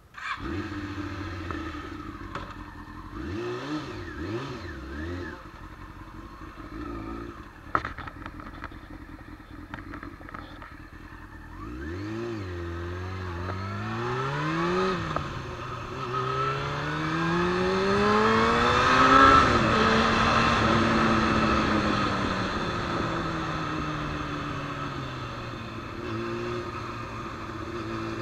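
Sport motorcycle engine fires up and idles, revved briefly twice, with a sharp clunk near the 8-second mark. The bike then pulls away, its pitch climbing through the gears with an upshift partway, peaking and then easing into a steady cruise.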